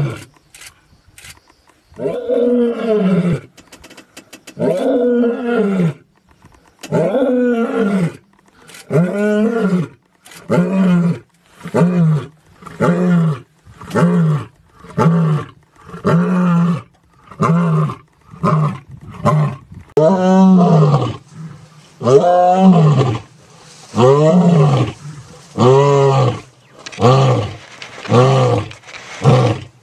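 Lions roaring, a male and then a lioness: four long, deep roars a couple of seconds apart, then a steady run of short grunting roars about one a second, louder in the second half.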